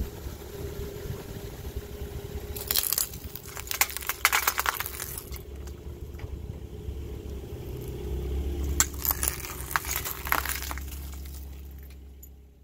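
Broken mirror glass crunching and crackling under a car tyre in several bursts, over the low steady running of the car's engine. The sound fades out at the end.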